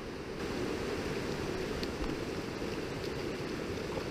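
Steady rush of river water flowing over a shallow stream bed.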